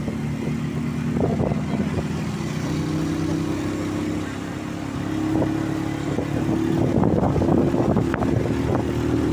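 Motorcycle engine of a kulong-kulong (motorcycle with sidecar) running under way, its pitch stepping up twice. Knocks and rattles from the ride come in near the end.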